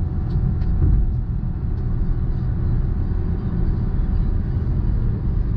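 Honda City 2020's cabin at speed near the end of a full-throttle 0–100 km/h run: a steady low rumble of engine and road noise from its 1.0-litre three-cylinder turbo and tyres.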